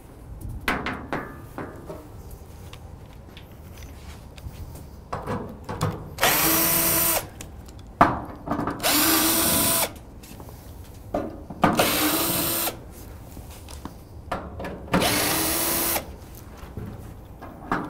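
Cordless drill/driver running in four short bursts of about a second each, a steady whine each time, backing out the T30 Torx fasteners of a steel cabinet side panel. Small clicks and knocks of handling fall between the runs.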